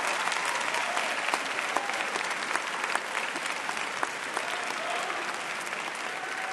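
An audience applauding, the clapping slowly dying down.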